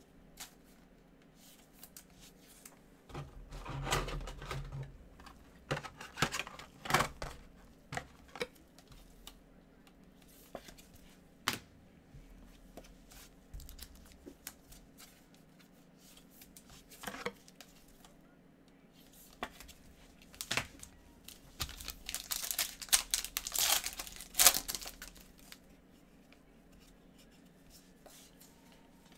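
Trading cards handled with gloved hands: cards sliding and flicking against each other, with paper-and-foil rustling and crinkling that comes in scattered bursts, the longest about three-quarters of the way through.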